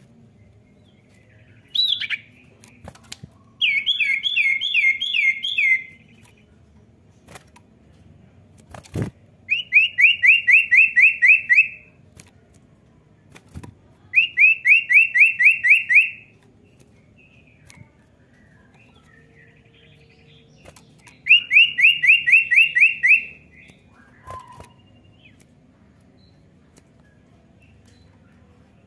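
Caged common iora singing: four bouts of a rapid, even trill of downslurred whistled notes, each about two seconds long, with a few sharp knocks between them, the loudest about nine seconds in.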